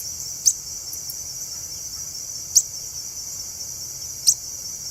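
A steady high-pitched insect chorus, with a short, sharp bird chirp repeated three times, about two seconds apart.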